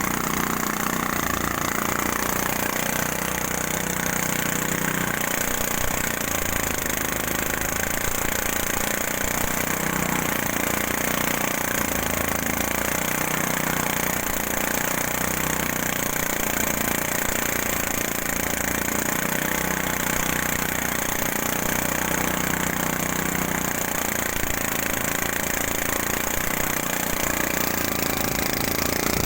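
Engine-driven rice threshing machine running steadily without a break.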